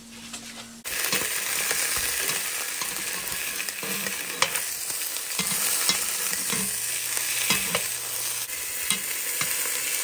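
Bratwurst sausages sizzling as they brown in a little avocado oil, with scattered clicks of a utensil stirring and turning them. The sizzle starts abruptly about a second in.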